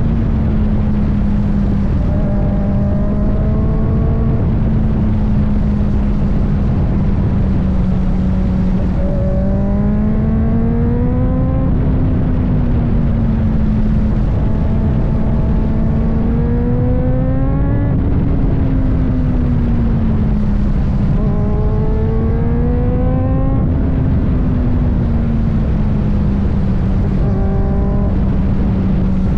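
Kawasaki ZX-4RR's inline-four engine pulling up through the revs about five times, its pitch climbing on each pull and dropping back between, over a steady rush of wind noise.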